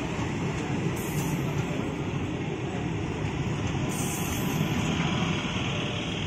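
Electric multiple-unit train running past close by: a steady rumble of wheels on the rails and coaches rolling through.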